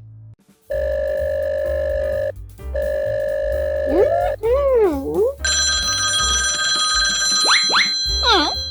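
Background music with a steady bass line, over which a telephone-style ringing tone sounds twice, each ring about a second and a half long. After the rings come sliding, wavering cartoon-effect tones, then a high sustained chime-like tone with quick rising and falling sweeps near the end.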